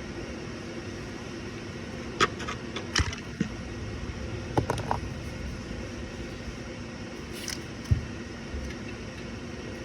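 Scattered sharp metal clinks and knocks of tools and engine parts being handled during an engine teardown, over a steady background hum.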